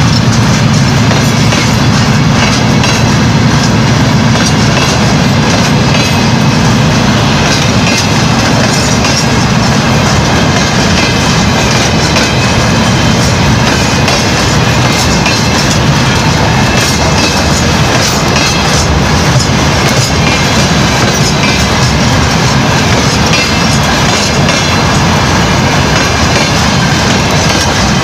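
Freight train of open-top gondola wagons rolling past: a loud, steady rumble of wheels on the rails, without letup.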